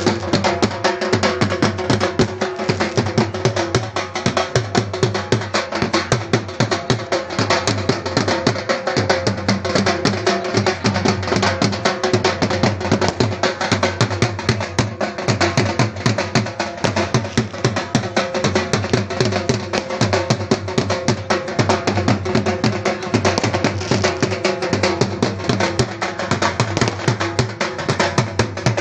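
Dhol, a double-headed barrel drum, beaten in a fast, continuous rhythm of rapid strokes.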